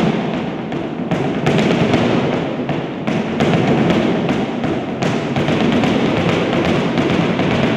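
Flamenco zapateado: a dancer's shoes striking a platform with heel and toe in a rapid, uneven run of taps and stamps.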